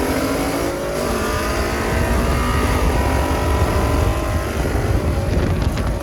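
V8 car engine accelerating hard, its pitch climbing steadily. About a second in there is a brief drop in pitch, like a gear shift, and then it climbs again.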